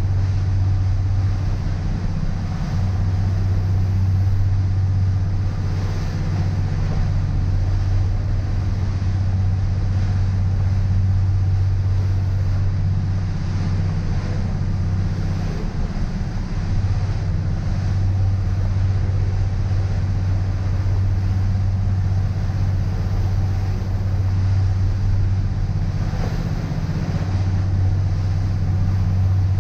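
Motor cruiser under way at cruising speed, its engines giving a steady low drone, heard from inside the cabin, with a hiss of wind and water rushing past the hull.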